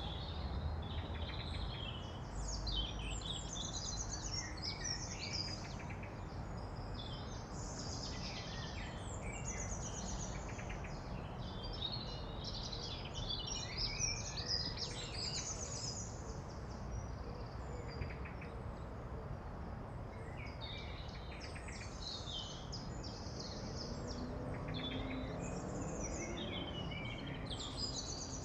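Many birds chirping and singing at once over a steady background of outdoor ambient noise.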